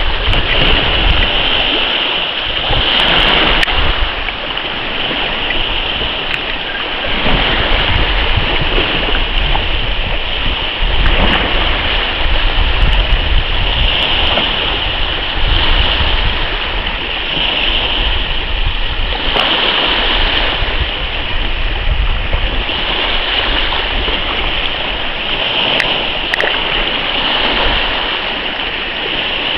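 Choppy sea water splashing and washing, swelling and easing every few seconds, with a low wind rumble on the microphone.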